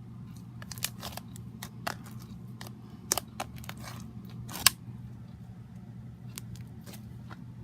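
Slime being worked by hand, giving a run of irregular sharp pops and clicks over a steady low hum.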